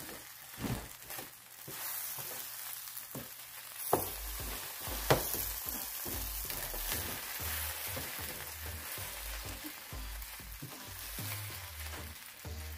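Jollof rice sizzling in a hot non-stick frying pan as a wooden spoon stirs and scrapes through it, with a couple of sharp knocks about four and five seconds in.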